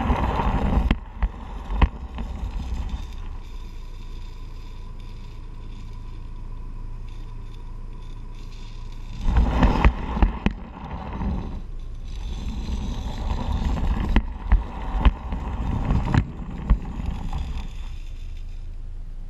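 Small live-steam garden-railway Garratt locomotive and its train running on the track, heard from a wagon behind it: a steady rolling rumble of wheels on rail with irregular sharp clicks and knocks. It clatters louder at the very start and again about halfway through.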